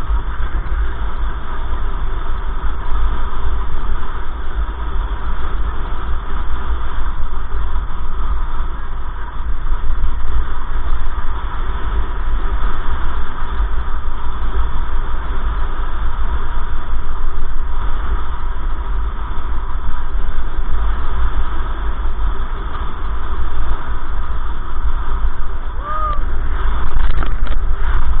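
Steady road and engine rumble of a car driving on a highway, heard from a dashcam in the cabin. A short chirp-like tone sounds near the end.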